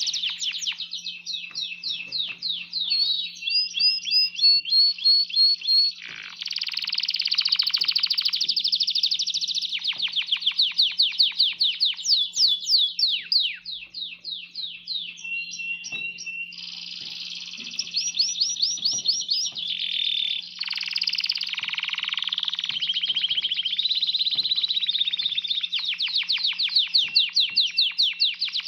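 Male domestic canary singing a long, unbroken song of rapid trills and rolls, moving from one repeated phrase to the next every few seconds.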